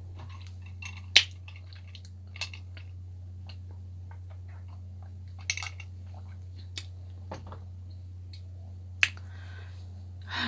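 Close-miked eating sounds: chewing with scattered short, sharp mouth clicks and lip smacks, the loudest about a second in, over a steady low hum.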